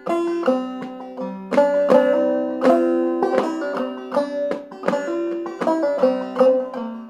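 Banjo played clawhammer style in double C tuning: a steady run of plucked melody notes with lower strings ringing underneath.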